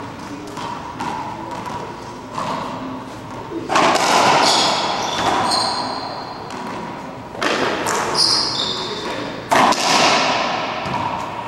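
Racquetball thumps echoing inside an enclosed court: sharp impacts about four seconds in and again from about seven and a half to ten seconds in, with short high shoe squeaks on the hardwood floor and a faint murmur of voices.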